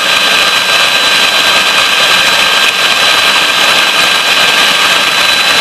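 Electric mixer running steadily at high speed, whisking eggs, with a steady high whine over its motor noise.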